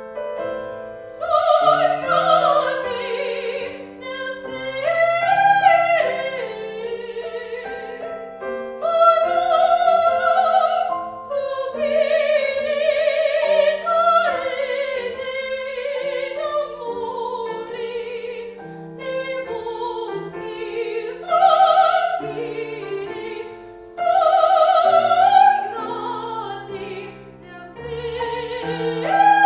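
A classical singer performing in an operatic style with vibrato, accompanied by piano, with phrases that swell and break every few seconds.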